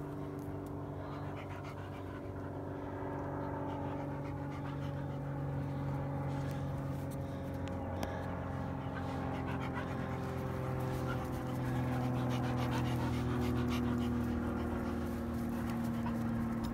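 A dog panting, over a steady droning hum whose pitch drifts slowly and grows a little louder.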